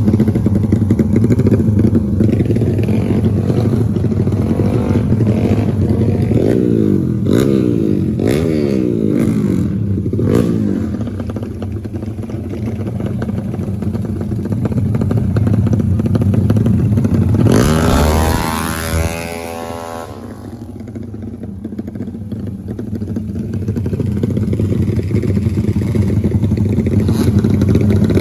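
Racing motorcycle engines running and revving, the pitch sweeping up and down as the bikes accelerate and back off, with a sharp rising rev about two-thirds of the way through.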